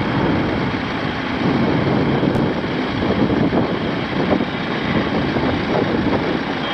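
Wind buffeting the microphone of an old home-video camera: a steady rushing rumble that wavers in loudness.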